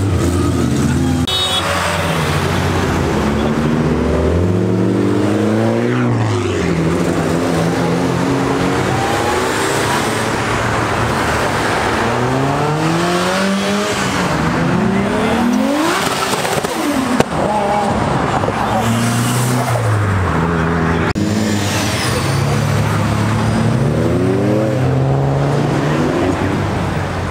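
Cars driving past one after another, their engines revving up and easing off in turn.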